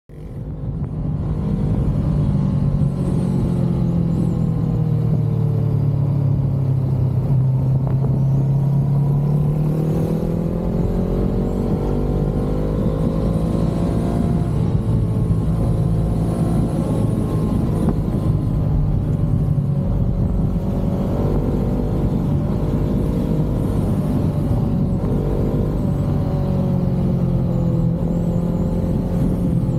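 Honda CBR500R's parallel-twin engine running through an Akrapovic exhaust, a steady deep note whose pitch rises and falls several times.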